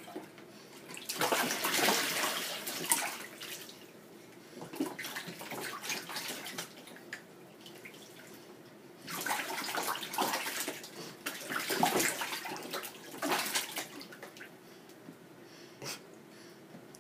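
Bath water splashing and trickling in a plastic baby bathtub as an adult's hand moves and pours the water over a baby, in several bursts a few seconds apart with quieter stretches between.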